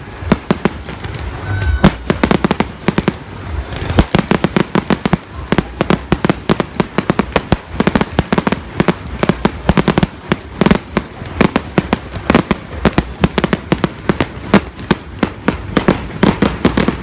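Fireworks going off in a rapid, continuous barrage of sharp bangs and crackles, several a second.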